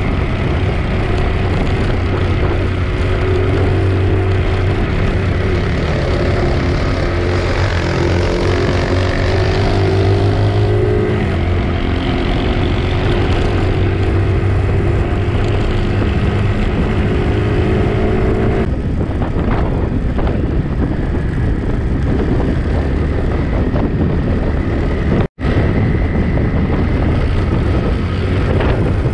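Motorcycle engine running while riding along a dirt road, its pitch rising and falling with the throttle, with wind rushing over the microphone. The sound cuts out for an instant near the end.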